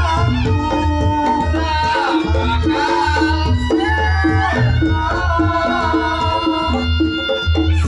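Reog Ponorogo gamelan ensemble playing loudly through a sound system: kendang drums beating a fast, steady pattern under repeated pitched gong-chime notes. A reedy slompret melody wavers and bends over the top.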